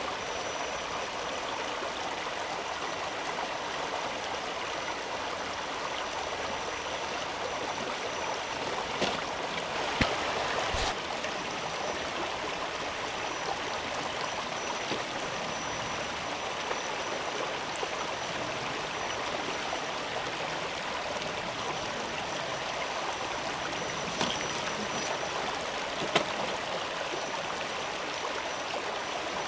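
Shallow rocky stream babbling steadily over stones, with a few sharp knocks and a faint steady high whine on top.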